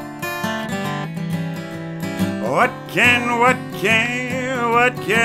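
Acoustic guitar strumming a country-style accompaniment; about halfway through a voice comes in singing the next line of the song.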